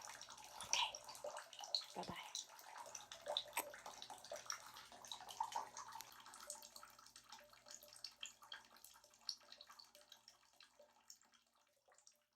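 Bathwater splashing and dripping softly in a tub, many small trickles and drops, fading away over the last few seconds.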